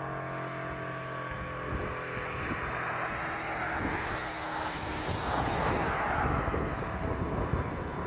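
A road vehicle passing, its engine and tyre noise swelling to a peak about five to six seconds in and then easing off. In the first second or two a low, steady hum, the last of the ACA P-50 siren's wound-down tone, fades out.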